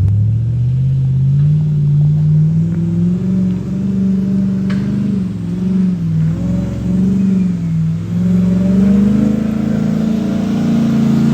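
Ram TRX pickup's supercharged V8 revving hard under load on a steep, muddy climb. The revs rise over the first couple of seconds, swing up and down through the middle, and climb again near the end.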